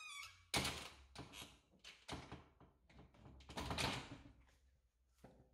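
A string of irregular rustling and knocking noises, the loudest about half a second in and again near four seconds, from someone moving about with the camera in hand.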